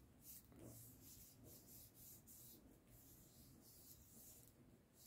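Faint, soft rubbing of hands on paper, repeated many times, as patterned paper panels are pressed and smoothed down onto a slimline card to stick them.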